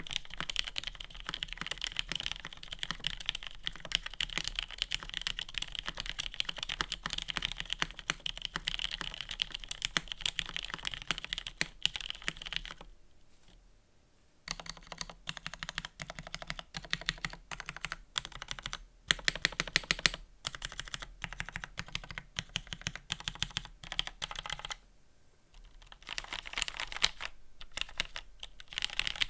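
Fast, continuous typing on an Exclusive E8.5 polycarbonate mechanical keyboard with lubed, filmed Cherry MX Black linear switches and GMK keycaps. The typing pauses briefly about halfway through and again near the end.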